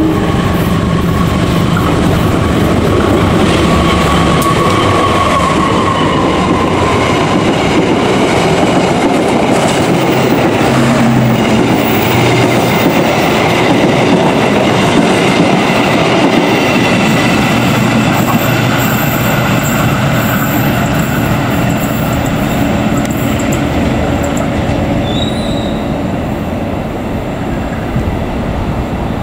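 A train running past on the rails: a steady rumble of wheels on track with thin high squealing tones and some clickety-clack, easing off slightly near the end.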